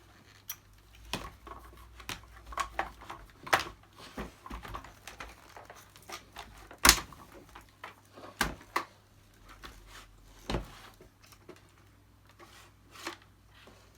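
Plastic parts of a Dyson DC50 upright vacuum cleaner being handled during a strip-down: irregular clicks and knocks, the loudest about halfway through.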